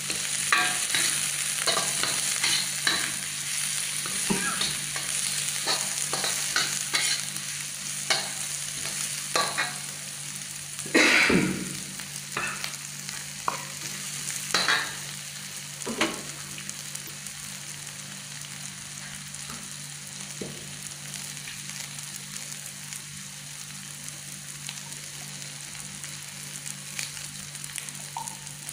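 Metal spatula scraping and tapping against a wok while stir-frying shrimp, carrot, spring onion and scrambled egg, over a steady sizzle of hot oil. The strokes are frequent through the first half, with one louder scrape about eleven seconds in, then thin out, leaving mostly the sizzle.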